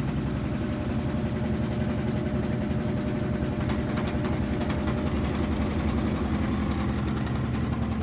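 A steady low machine hum from a running motor, with a few faint clicks of plastic parts being handled about four seconds in.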